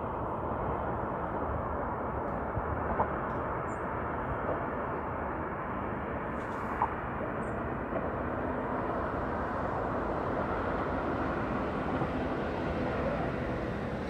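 Steady noise of distant city traffic, an even wash with no single vehicle standing out, with a couple of faint clicks.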